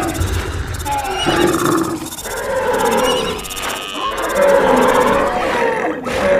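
A mix of animal sound effects: several roars and calls overlapping at once, loud throughout.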